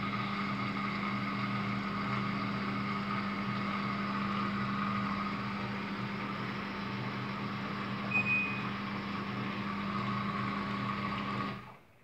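Daewoo DWD-FT1013 front-loading washing machine running in its service test mode with the door open: a steady motor hum that cuts off suddenly near the end. A short high beep sounds about two-thirds of the way through.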